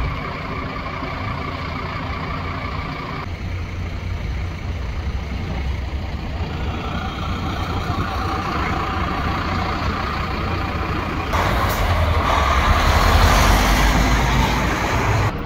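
Steady road traffic and engine rumble. For the last few seconds a bulk tanker semi-trailer truck drives close past, and its engine and tyre noise are the loudest part.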